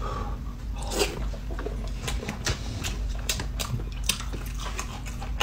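People eating close to the microphone: chewing and crunching, with irregular sharp bites and mouth smacks.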